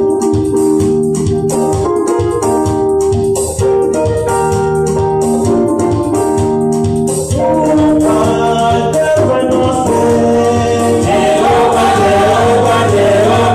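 Live gospel praise music from a church band: held keyboard chords over a steady percussion beat, with singing coming in about halfway through.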